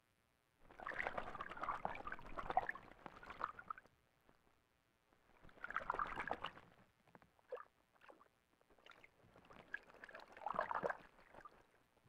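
Ural owl bathing in a shallow pool, splashing the water with its wings and body in three bouts of a few seconds each, with a few short splashes between them.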